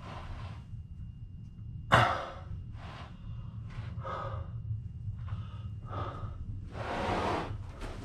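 Close breathing of the person carrying the camera: a run of short breaths in and out over a low steady rumble, with one sudden loud, sharp sound about two seconds in.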